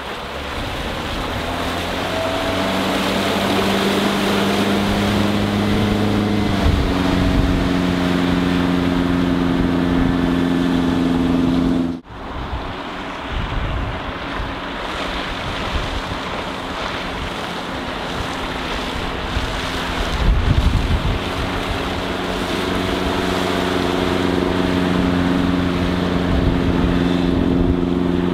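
MerCruiser 3.0-litre four-cylinder sterndrive of a Bayliner Capri cuddy running steadily underway, with wind noise on the microphone. The engine note breaks off abruptly about twelve seconds in and picks up again, and a gust of wind rumbles about twenty seconds in.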